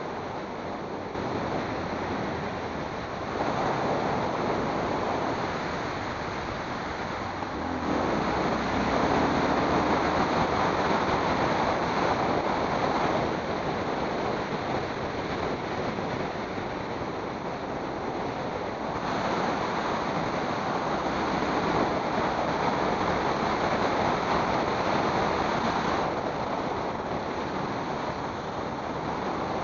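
Wind rush over the microphone and road noise from moving along an asphalt road at speed, a steady roar that swells and eases in long stretches.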